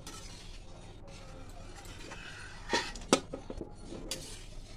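Metal spatula scraping and clinking against a steel kadhai and plate as steamed taro-leaf and gram-flour rolls are lifted out. There are a few sharp clinks, the loudest about three seconds in, over a steady low hum.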